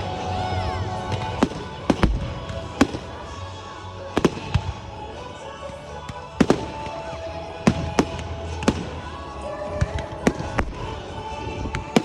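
Fireworks display: a dozen or more sharp bangs at irregular intervals, some in quick pairs, with music playing underneath.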